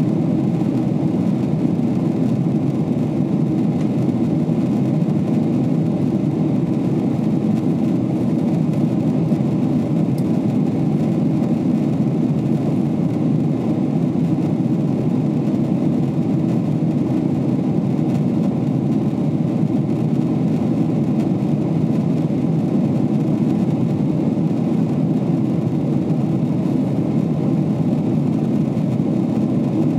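Steady cabin noise of a Boeing 777-300ER climbing out, heard from a window seat beside the wing: GE90 engines and airflow together as a dense low rumble that holds level throughout.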